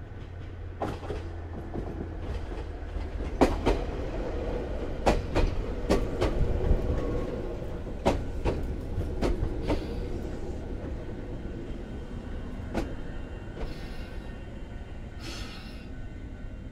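Chichibu Railway 7500-series electric train running on the line with a low rumble and a run of sharp, irregular clicks as its wheels cross rail joints. The clicks are thickest about four to ten seconds in, and the sound eases off toward the end.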